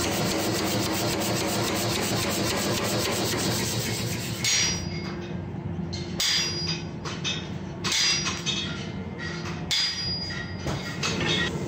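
Power hammer pounding a red-hot steel bar in a fast, even run of blows. About four and a half seconds in, this gives way to a hand hammer striking the hot steel on an anvil in separate blows half a second to a second apart, some with a short ring. A steady hum runs beneath.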